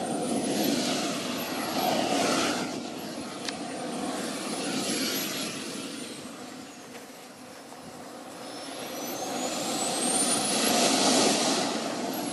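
Model jet turbine in a radio-controlled F-16 running while the model taxis on grass. A rushing noise swells and fades three times, loudest near the end, and a thin high whine glides up and down with the throttle.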